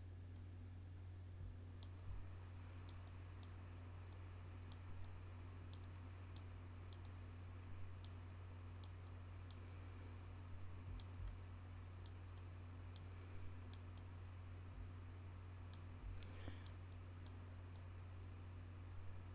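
Faint computer mouse clicks, irregular and about one to two a second, as the clone tool is clicked along a tear in a photo editor. A steady low hum runs under them.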